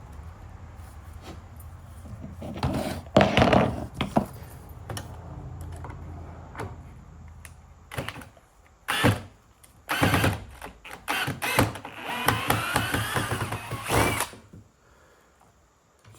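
Knocks and clatter of wood and tools being handled. Near the end a handheld power tool runs for about two seconds with a rising whine, then stops.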